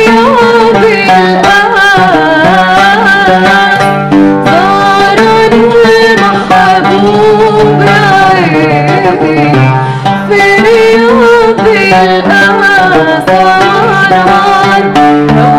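A woman singing an Arabic song to oud accompaniment: a solo female voice with ornamented, wavering lines over plucked oud notes.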